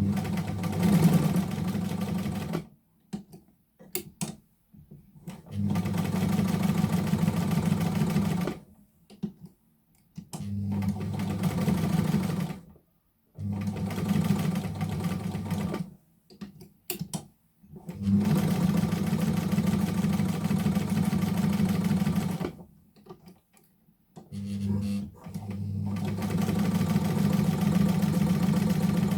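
Novum Deluxe heavy-duty straight-stitch sewing machine test-sewing in six runs of about two to four seconds each, with a steady hum and stitching rattle. Between the runs are short pauses, broken by a few sharp clicks.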